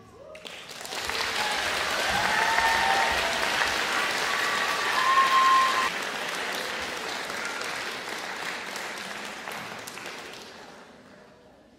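Audience applauding after the song ends, starting about half a second in, with a few cheers over it, then fading out over the last few seconds.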